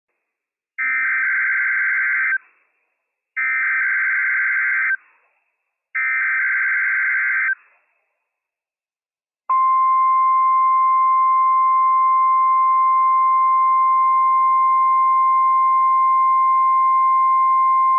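NOAA Weather Radio Emergency Alert System tones: three identical bursts of the SAME digital header, each a harsh warbling data screech about a second and a half long, about a second apart. About nine and a half seconds in, the steady 1050 Hz warning alarm tone begins and holds without change. These are live, operational alert codes and alarm tone, sent for a Required Weekly Test, and can trigger weather-alert receivers.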